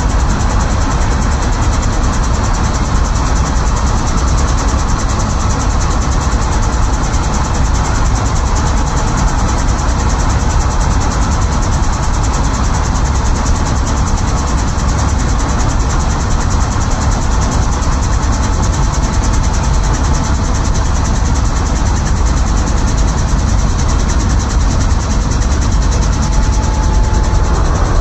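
Helicopter running steadily: a loud, unbroken engine and rotor sound with a fast, even beat.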